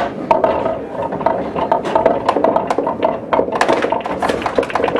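Pool balls clacking against one another and on the table as they are gathered into the triangle for racking: a long run of sharp clicks and knocks, some with a short ring.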